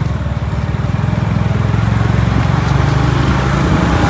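Motorbike engine running while riding, with wind and road noise over it.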